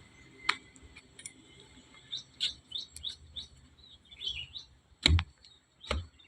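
Small birds chirping in short, repeated high calls. Two louder knocks come near the end.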